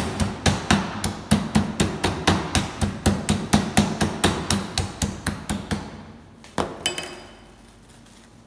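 A metal meat tenderizer mallet pounding cling-wrapped meat on a plastic cutting board, in rapid even blows about four or five a second that weaken toward the end. About seven seconds in, two sharper knocks with a brief metallic ring.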